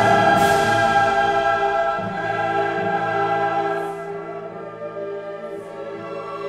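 Choral music with orchestra: a choir holding long sustained chords, a new chord entering at the start and the music growing softer after about four seconds.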